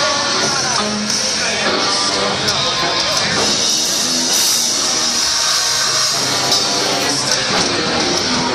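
Loud rock music with guitar playing in a concert venue.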